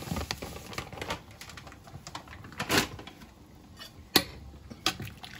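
Irregular light clicks and taps from handling at a stockpot of boiling seafood-boil water, with sharper knocks about three seconds in and just after four seconds.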